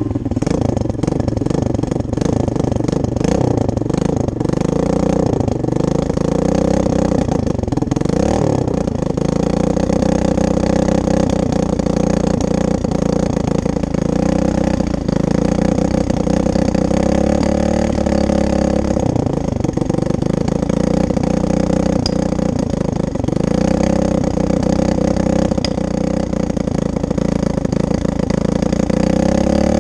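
SSR dirt bike engine running steadily just after being kick-started, with a few brief changes in engine speed.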